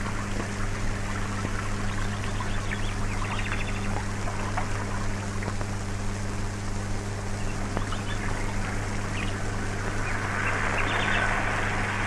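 Worn old film soundtrack noise: a steady low hum under an even hiss with scattered crackles, the hiss growing a little brighter near the end.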